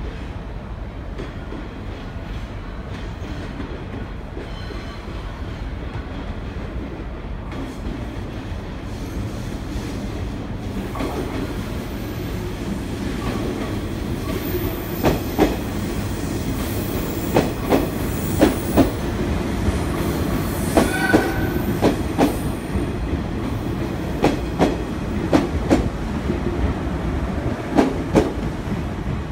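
A JR 719 series electric train running slowly past along the platform track. Its rumble grows louder, then from about halfway its wheels click irregularly over rail joints, with a brief wheel squeal about two-thirds of the way through.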